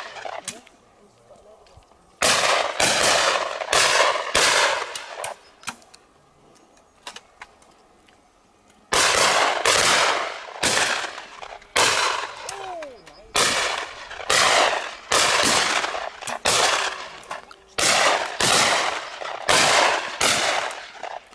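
Shotguns firing at clay targets in quick succession: a group of about five shots, a pause of a few seconds, then a long run of some fifteen more, each shot with a short echo.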